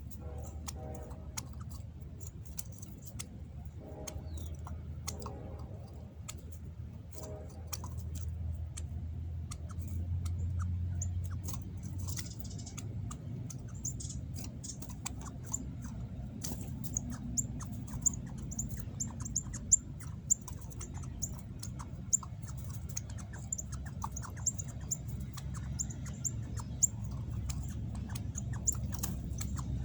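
Northern cardinals giving short, sharp, very high chip notes, sparse at first and then coming rapidly in a long run from about halfway through, over a low rumble with scattered sharp clicks.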